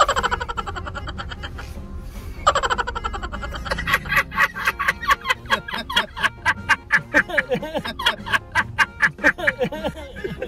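A short edited-in music clip starts twice, then from about four seconds in a long burst of rapid, pulsing laughter.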